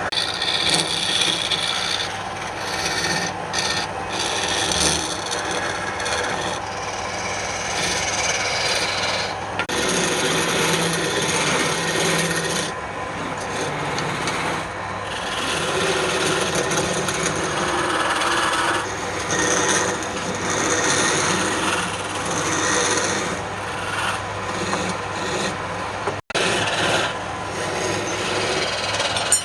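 Wood lathe running with a steady low hum while a turning tool cuts and scrapes the spinning wood, the rasping noise swelling and changing every few seconds. It breaks off for an instant about 26 seconds in.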